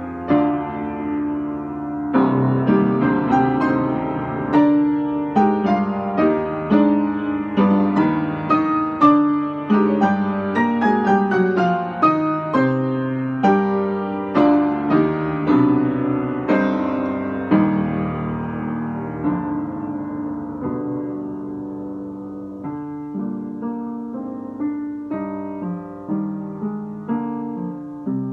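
Upright acoustic piano played by hand in a free improvisation, with chords and runs of struck notes ringing and decaying. The piano is new and not yet tuned. The playing eases to a softer level from about two-thirds of the way through.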